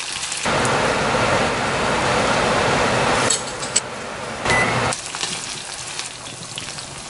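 Sliced onions sizzling as they shallow-fry in hot oil in a stainless steel saucepan, stirred with a wooden spatula that gives a few light knocks. The sizzle is loud for the first few seconds, then drops to a quieter hiss, with a brief louder flare about four and a half seconds in.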